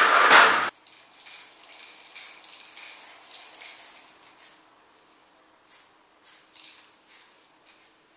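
Spray-paint can being tried with a newly fitted 'banana' cap: light metallic rattling, then about five short hissing spray spurts, roughly half a second apart near the end.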